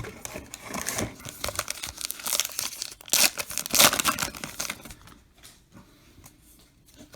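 A baseball card pack's wrapper being torn open and crinkled, loudest a little past the middle, then a few faint handling clicks near the end.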